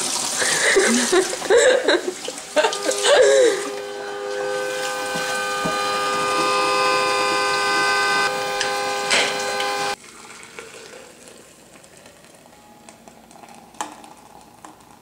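A stovetop whistling kettle (strawberry-shaped enamel) whistles at the boil: a steady, chord-like whistle of several tones lasting about six seconds, which stops suddenly. A voice is heard briefly before it starts.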